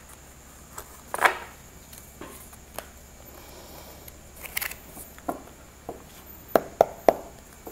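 Tarot cards being gathered up and slid together across a cloth-covered table, with a louder sweep about a second in, then the deck knocked square with a few sharp taps near the end.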